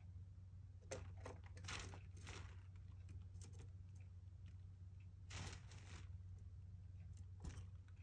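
Java sparrow bathing in a covered plastic bird bath: several short bursts of splashing and wing-fluttering in the water, faint over a steady low hum.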